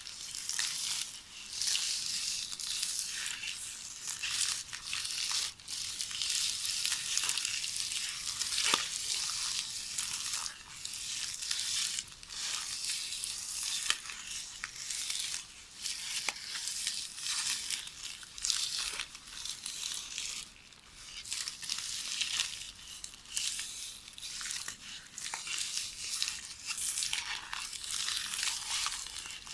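VHS videotape ribbon being hand-knitted, giving a continuous crisp rustle and crackle as the tape slides and crinkles, with scattered small clicks.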